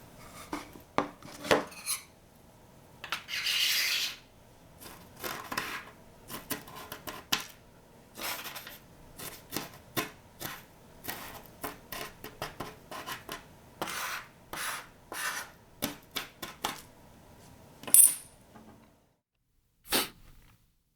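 Many light clicks and scrapes, like a utensil clinking and scraping against a dish, with a longer hissing rub about three seconds in. It stops shortly before the end, leaving one last click.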